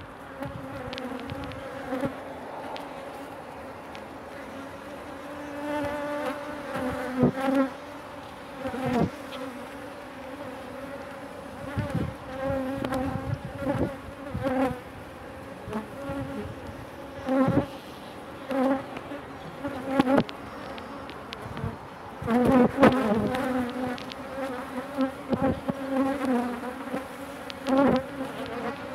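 Honeybees buzzing around an opened hive, a steady hum that swells loud whenever bees fly close. Several sharp knocks and scrapes come from the metal hive tool working the wooden frames.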